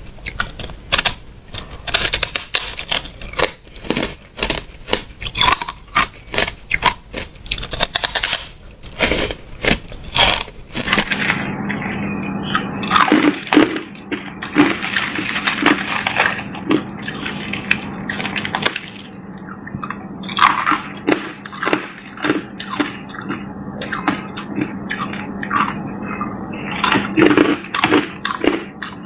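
Hard ice being bitten and crunched between the teeth, close up. For about the first ten seconds the crunching is rapid and crackly. After that it slows to separate chewing crunches.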